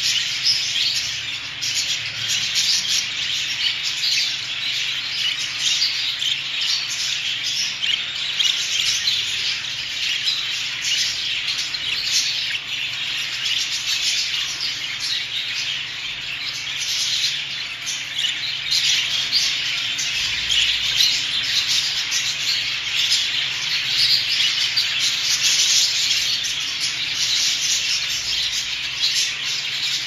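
A flock of budgerigars chattering: many short chirps and warbles overlapping into a steady, dense twitter.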